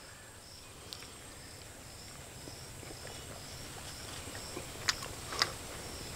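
Insects chirping in a faint, high, evenly repeating pulse, about two chirps a second. A few sharp clicks come about five seconds in.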